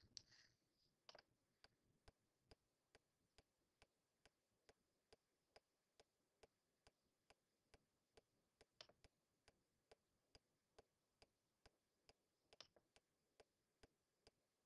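Near silence with faint, evenly spaced ticks a little more than two a second, and a couple of slightly stronger clicks about nine and twelve and a half seconds in.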